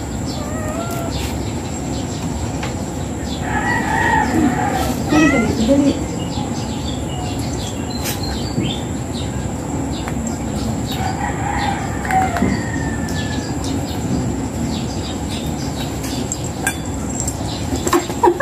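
A rooster crowing twice, about four seconds in and again about eleven seconds in, each crow lasting around two seconds, over steady background noise.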